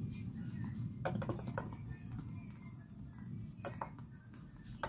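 Cooking oil poured in a thin stream into a large metal wok, with a few sharp metallic clinks against the pan.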